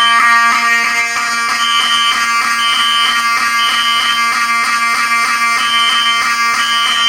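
Fire alarm notification horns sound continuously as a steady buzzing tone. Over them, smoke alarms beep a high-pitched three-beep temporal evacuation pattern: three half-second beeps, a pause of about a second and a half, then three more.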